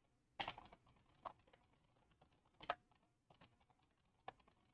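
Faint typing on a computer keyboard: a quick run of keystrokes about half a second in, then single keys spaced a second or so apart.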